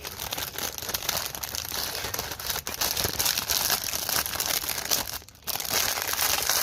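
Packaging crinkling continuously as it is handled and opened by hand, with a short pause about five seconds in.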